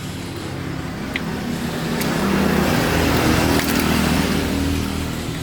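A small engine running steadily, growing louder toward the middle and easing off a little near the end.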